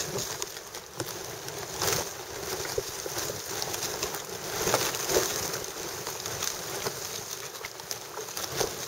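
Steady wind and lapping water noise, with a few short splashes from birds up-ending to feed.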